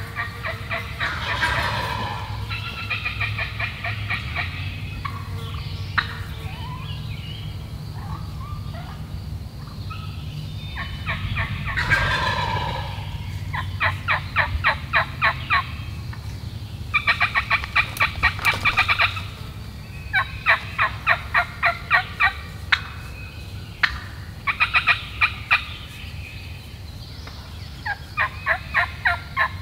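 A wild turkey gobbler gobbles about a second in and again near the middle. Around the gobbles come repeated runs of rapid hen turkey yelps, each run a second or two of evenly spaced notes.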